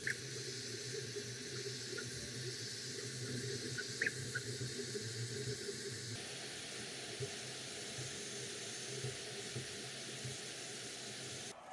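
FLSun V400 high-speed delta 3D printer running a print: a steady fan hiss over a low hum, with a few brief chirps near the start and about four seconds in. The sound shifts about six seconds in.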